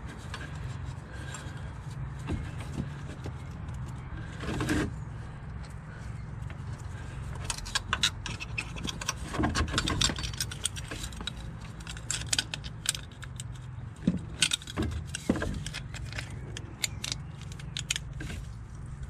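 Light metallic clicking and jangling as a metal fuel-filter bracket is handled and worked into place around a diesel fuel filter's canister. The taps come irregularly and grow denser in the second half, over a steady low hum.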